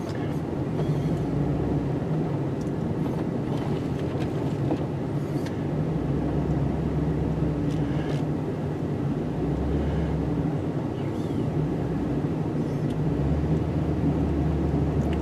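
Snowplow truck's engine running steadily, heard from inside the cab while it moves and plows, with a deeper low rumble swelling several times as the load changes.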